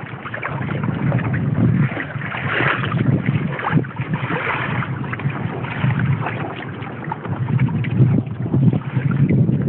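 Wind buffeting the microphone over water washing and lapping along the hull and outrigger floats of a trimaran sailing kayak under way, swelling and fading in uneven surges.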